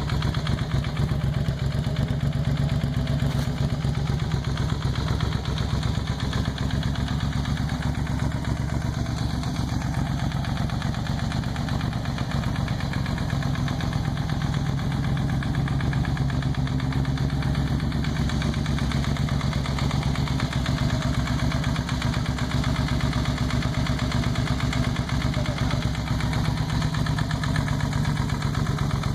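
Suzuki SV650S 645 cc V-twin engine idling steadily, with rapid, even firing pulses. It makes a noise that the owner is unsure is normal.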